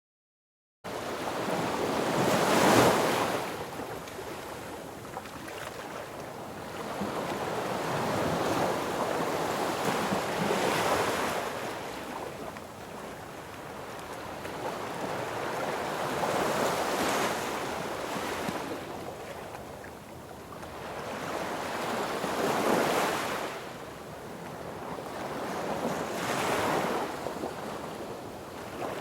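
Sea waves breaking on a beach: the surf cuts in abruptly just under a second in, then rises and falls in five swells, one wave every five to eight seconds.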